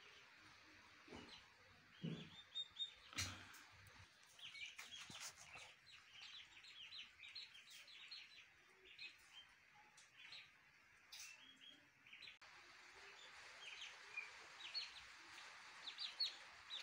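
Turkey poults peeping: faint, many short high cheeps in quick runs, with a few knocks in the first few seconds.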